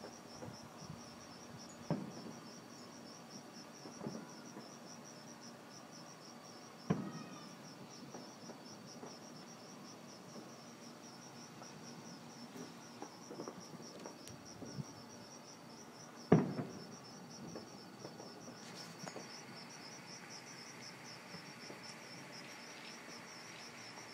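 Crickets chirping steadily in a high pulsing trill, with a few sharp pops of distant fireworks, the loudest about sixteen seconds in.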